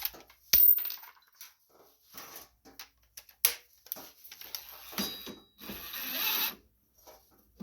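Hand tools on the steering gear of a riding mower as its nut is run on and tightened: a sharp metal click about half a second in, then scattered clicks, knocks and short scrapes, with a longer rasping stretch about six seconds in.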